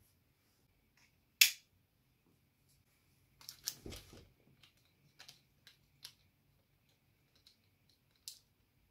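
Sharp clicks and light knocks from equipment being handled, with one loud click about a second and a half in and a cluster of clicks with a dull thump around four seconds, then a few scattered smaller clicks.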